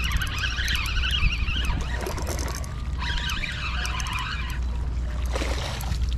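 Wind buffeting the microphone while a hooked fluke (summer flounder) is reeled in, splashing at the surface, with a brief splash and rustle about five and a half seconds in as the fish is swung out of the water onto the grass. High wavering chirps come and go over it.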